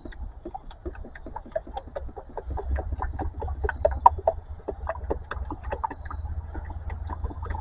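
Motor oil glugging out of a quart bottle into the engine's oil filler, a quick irregular run of gurgling pops, over a steady low rumble.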